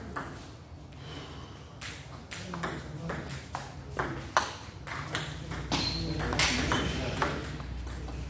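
Table tennis ball knocking off rubber paddles and the table during a serve and rally: a quick, irregular run of sharp clicks.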